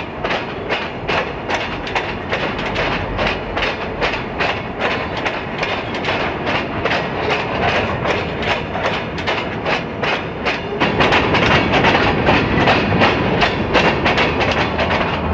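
Freight train rolling past: diesel locomotives and then coal hopper cars, with a fast, steady clickety-clack of wheels over rail joints. It grows louder about eleven seconds in as the hoppers pass close by.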